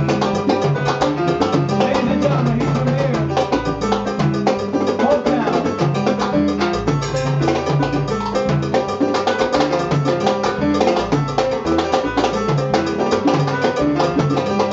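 Live salsa band playing, led by congas and timbales keeping a steady, driving rhythm over a bass line.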